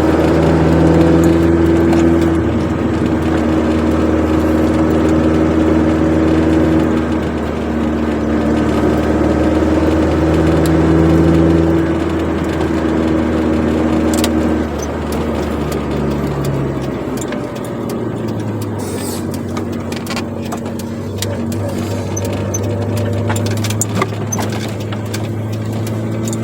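Chevrolet Corsa Wind's four-cylinder engine and sport exhaust droning steadily while driving. About halfway through the drone changes pitch and drops a little in level, then carries on steadily.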